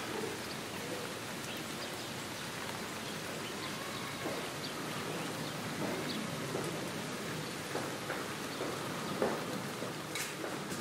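Light rain falling as a steady hiss, with scattered faint drips.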